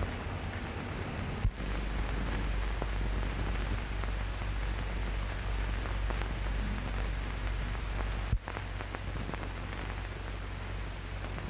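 Steady crackling hiss and low hum of an old optical film soundtrack with no dialogue. There are two sharp pops, about a second and a half in and again about eight seconds in, and the hum changes abruptly at each one, as at shot changes or splices.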